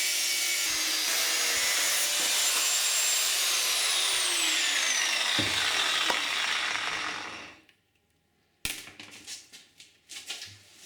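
Angle grinder cutting through a sheet, its pitch falling as it winds down and stopping about seven and a half seconds in. A sharp click follows, then a few light knocks.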